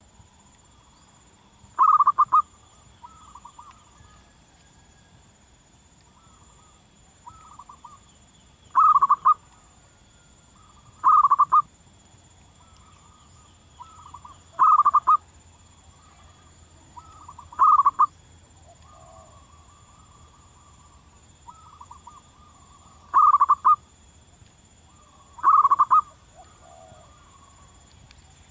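Zebra dove (perkutut) cooing: seven short, loud phrases of rapid, trilled coos, spaced a few seconds apart, with fainter coos in between.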